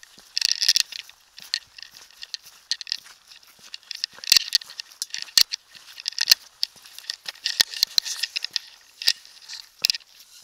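Footsteps crunching irregularly on a gritty stone moorland path, with sharp crackling clicks at about walking pace.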